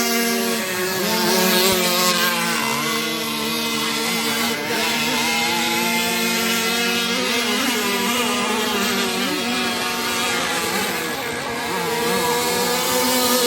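Radio-controlled boat's motor running with a continuous buzzing drone, its pitch dipping and rising slightly as the throttle changes.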